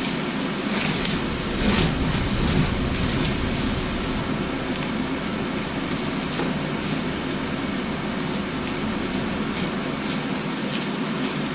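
Fried rice sizzling steadily in a hot pan just after light soy sauce has gone in, with a few brief soft scrapes as it is stirred.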